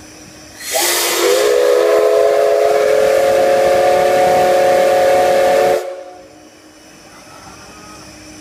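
Steam whistle of the C11 207 steam locomotive giving one long blast of about five seconds. It opens with a rush of steam and a short upward slide in pitch, holds a steady chord of several tones, then cuts off abruptly.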